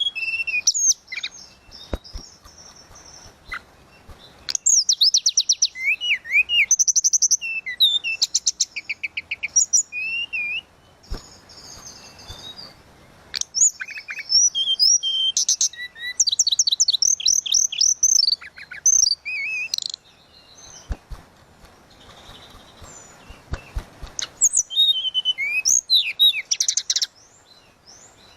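Tledekan laut, the mangrove blue flycatcher, singing in bursts of varied phrases: clear whistled notes and short glides mixed with fast, high trills and rapid repeated notes, with short pauses between phrases.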